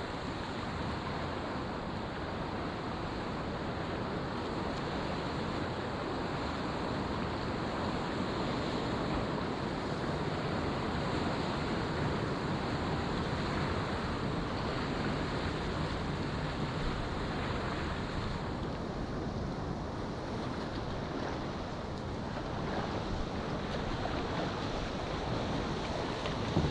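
Steady rush of moving river water around a kayak.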